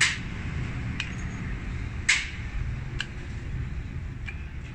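Sharp metallic clicks, about one a second, from hand work on an inline diesel injection pump as its parts are turned and checked for play, over a low steady hum.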